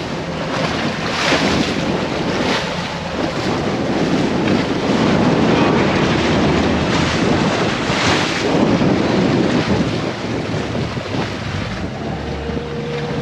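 Boat running across choppy water: wind rushing over the microphone and water splashing and hissing along the hull and wake, in surges every few seconds, with the Suzuki 300 outboard running underneath.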